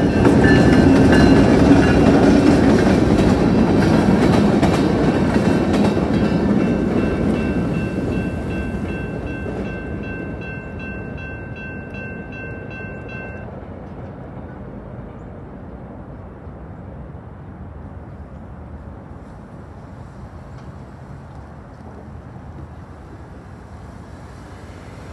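BNSF diesel freight train passing over the crossing, its rumble and wheel noise loudest at first and fading slowly as it moves away. Over it the crossing's GS Type 2 electronic bell rings steadily, then stops about halfway through.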